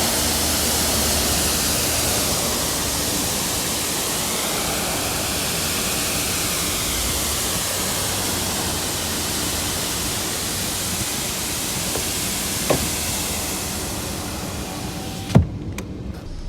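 Steady rushing hiss of the man-made Khorfakkan waterfall's falling water. It cuts off abruptly near the end, with a sharp knock.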